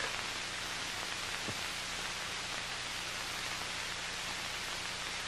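Steady hiss with a low electrical hum underneath: the background noise of an old film soundtrack. One faint click about a second and a half in.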